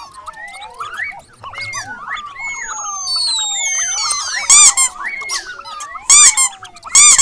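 Cartoon mouse squeak sound effects: repeated sliding squeaks that fall and rise in pitch, with three short, loud bursts of shrill squeaking about four and a half seconds in, about six seconds in, and just before the end.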